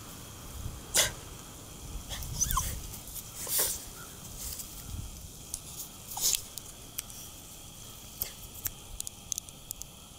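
Pet spaniels giving a few short barks and whines, the loudest a sharp one about a second in, over a low background rumble.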